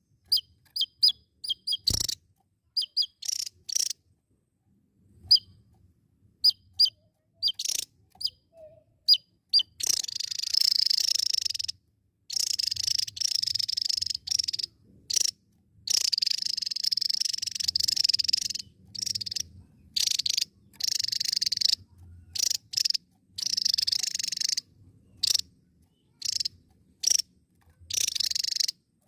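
Javan tesia singing: for the first ten seconds, a string of short, sharp, high notes, each sliding downward, spaced out; then long, rapid, chattering trills, each a second or two long, with brief pauses between them.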